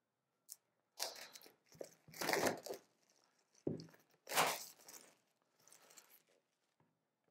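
Clear plastic wrap on a product box being torn open, crinkling in several short bursts, loudest about two and four and a half seconds in, with a couple of small clicks between.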